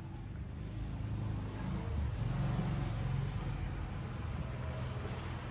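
A low, steady engine hum, like a motor vehicle running close by, that grows louder about two seconds in and eases off again.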